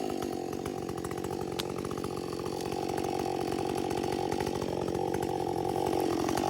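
Husqvarna two-stroke chainsaw running at a low, even engine speed, the note holding steady.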